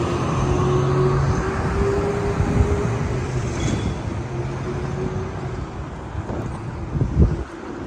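City street traffic noise with a vehicle engine humming steadily, the hum fading after about four seconds, and a brief low thump near the end.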